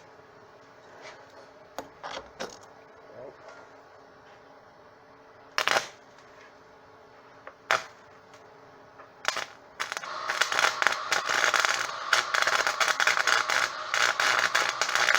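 Electric arc welder tack-welding steel pieces together: a few short crackling bursts, then from about ten seconds in a continuous sputtering crackle of the arc, with a faint steady hum beneath.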